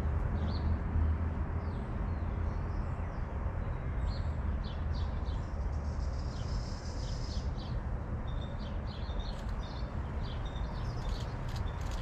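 Wild songbirds calling with many short, high chirps scattered throughout, and a longer high trill about six to seven seconds in, over a steady low rumble.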